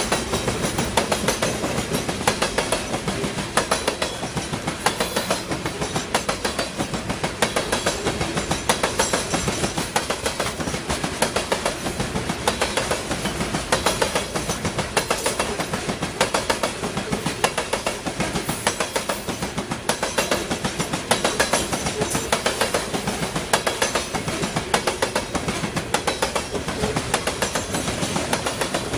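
Steel wheels of a CSX coal train's cars clicking over a jointed rail, a steady clickety-clack rhythm as car after car rolls through.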